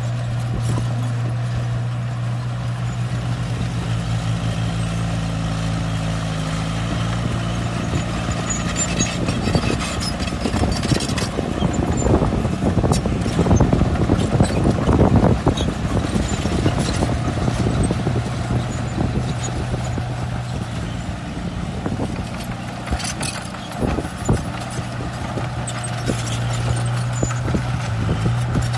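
Shantui crawler bulldozer at work: its diesel engine runs with a steady low drone while the tracks and blade give off frequent clanks and knocks, which grow louder and busier about halfway through.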